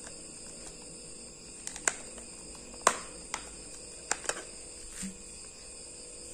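Plastic clicks and snaps as the white back cover of a Bolt Aquila Slim MiFi modem is prised off its orange frame to get at the battery: about seven short, sharp clicks at irregular intervals, over a faint steady high-pitched background.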